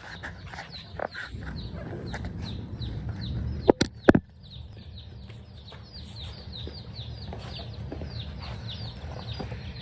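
A crowd of baby chicks peeping without pause: many short, high, downward cheeps overlapping one another. Three sharp knocks about four seconds in stand out above them.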